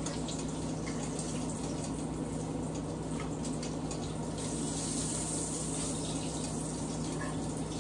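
Kitchen faucet running steadily into a sink, over a low steady hum.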